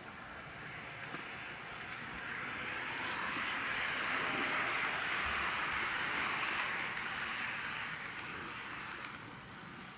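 Tomix KiHa 81/82 series N-gauge model train running past close by: a steady rushing whir of its wheels on the track and its motor that swells to a peak midway and fades away again.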